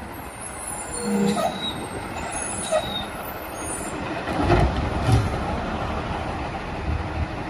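Automated side-loader garbage truck with its diesel engine running as it pulls up and its hydraulic arm grabs and lifts a wheeled trash cart. There are heavy thumps and clanks from the arm and cart about four and a half to five seconds in.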